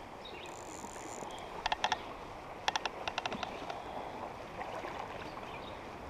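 Steady rush of a high, fast-flowing creek current. Two short runs of rapid clicks stand out about two and three seconds in.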